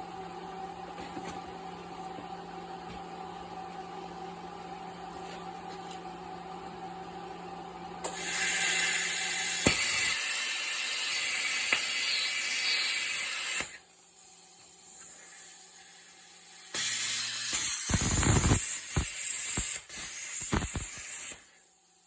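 Air plasma cutter cutting a groove into a steel pin bushing: two bursts of loud hissing, each about five seconds long, the first about eight seconds in and the second near the end. A steady machine hum is heard before the first cut.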